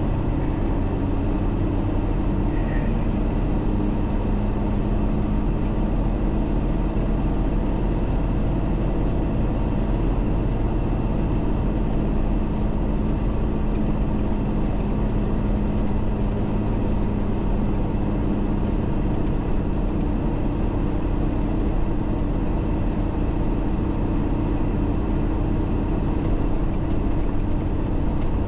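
MAN 4x4 truck's diesel engine running steadily under way, with road noise. Its hum shifts to a higher note about two-thirds of the way through.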